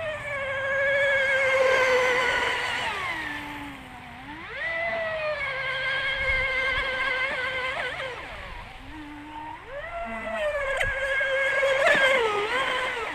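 RC speed boat's Rocket 3674 brushless electric motor whining at full throttle. It eases off and winds back up twice, giving three high-pitched runs, each with a slightly wavering pitch.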